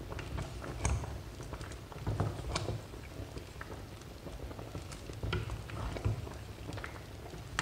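Wooden spoon stirring okra soup in a stainless steel pot, with irregular soft taps and scrapes of the spoon against the pot.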